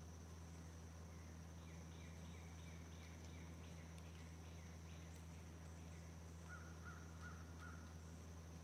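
Faint distant birds calling: a quick run of repeated short notes, about two a second, in the first half, then four short, lower, harsher calls near the end, over a steady thin high insect drone and a low steady hum.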